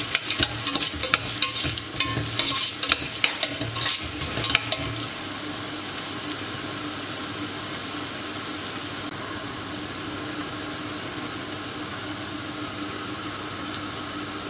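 Sliced onions and green chillies frying in butter and oil in a stainless steel pot. For about the first five seconds a metal spatula scrapes and clicks against the pot as they are stirred; then only a steady sizzle as the onions sauté towards golden brown.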